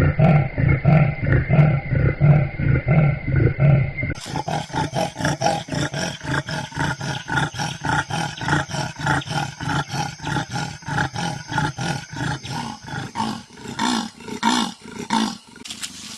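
A leopard's sawing call: a long series of rhythmic rasping grunts, about two a second. About four seconds in, another recording of the call takes over with faster, thinner grunts that fade out near the end.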